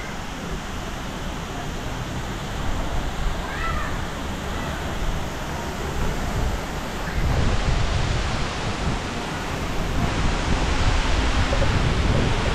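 Steady outdoor rushing noise with wind buffeting the microphone, the low rumble growing heavier about halfway through.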